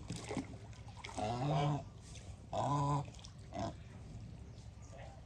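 Domestic geese calling: two drawn-out, low, nasal calls and a shorter one after them.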